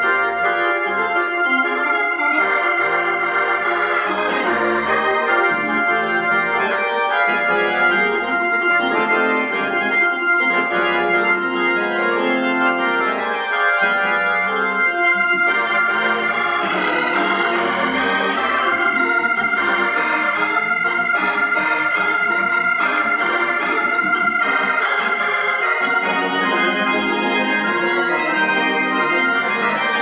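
Hammond B3 organ played loud in gospel shout-music style, full sustained chords with shifting notes. Its tone is still stock, which the owner finds too mellow, lacking bite and crunch.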